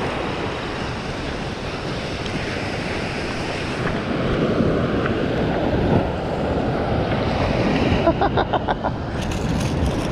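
Surf washing in over the sand, with wind buffeting the microphone. About eight seconds in comes a short run of quick ticks.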